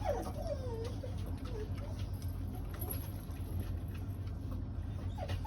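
Dog whining in wavering, sliding squeaks, most of them in the first two seconds and a few more at the end, over a steady low hum.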